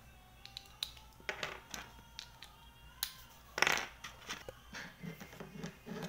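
Plastic toy building blocks clicking and clacking as they are handled and pressed together: a run of scattered sharp clicks, with a louder, longer clatter a little past halfway.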